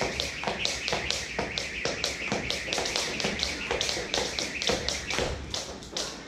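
Jump rope slapping a wooden gym floor in a quick, even rhythm of sharp ticks as the jumper skips, with faint background music.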